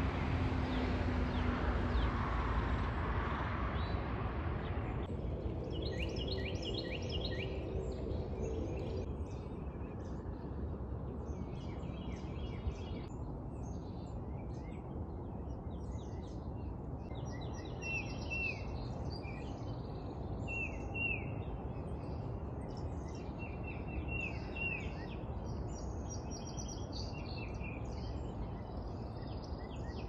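Wild songbirds chirping and singing: many short, high chirps, some falling in pitch, over a low, steady background rumble. For about the first five seconds a louder, steady rush of noise covers them, then cuts off.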